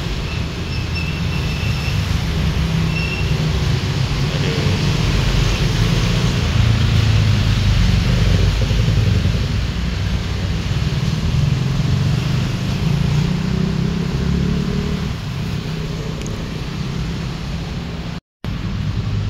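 Steady road traffic: a continuous low rumble of car engines and tyres that swells slightly in the middle as vehicles pass. The sound cuts out for a split second near the end.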